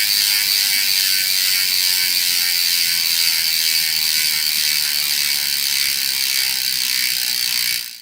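Rear freewheel hub of a Dartmoor Two6Player Evo dirt jump bike buzzing as the back wheel spins freely, the pawls clicking too fast to count. It drops slightly in pitch as the wheel slows, then cuts off suddenly at the end.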